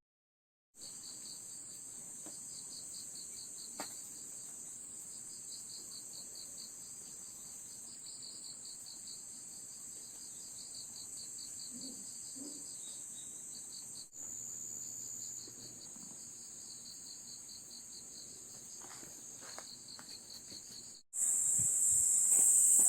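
Chorus of crickets and other singing insects: a steady high shrill over a row of rapid, evenly repeating chirps. It breaks off at two cuts and is noticeably louder near the end.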